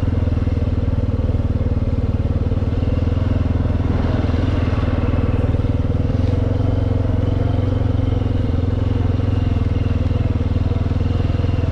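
Four-wheeler (ATV) engine running at a steady speed as the machine is ridden along, a constant low engine note with no change in pace.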